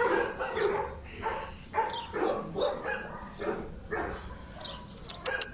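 A dog barking repeatedly, short calls about two a second.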